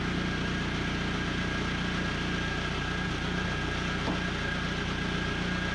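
Pull-start portable gasoline generator engine running steadily at constant speed, with a steady whine above it.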